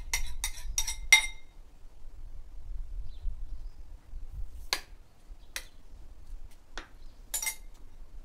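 Metal spoon clinking against a ceramic bowl while scooping from it: a quick run of about five clinks in the first second, then four single clinks a second or so apart in the second half.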